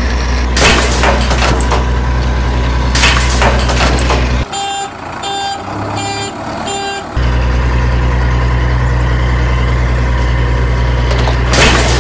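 Heavy truck engine running steadily, with short hisses now and then. About four and a half seconds in the engine drops out and a reversing alarm beeps four times, then the engine comes back.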